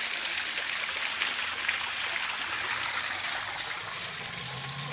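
Steady rush of splashing, running water, with one sharp click about four seconds in.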